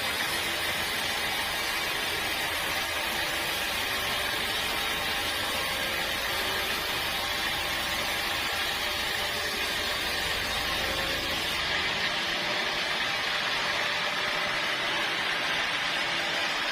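Sawmill saw cutting through a teak log: a steady, dense hiss with a faint hum underneath. About two-thirds of the way through, the highest and lowest parts of the sound drop off.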